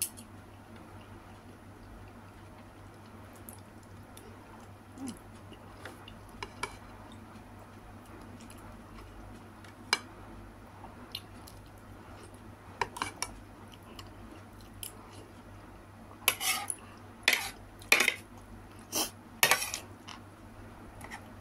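Metal fork and spoon clinking and scraping against a plate while eating, with a few scattered clicks at first. A quick run of louder scrapes and clinks comes near the end.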